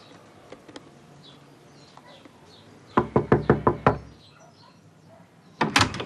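Knuckles knocking on a wooden door: a quick run of about seven raps, a pause, then a second shorter burst of about three raps near the end.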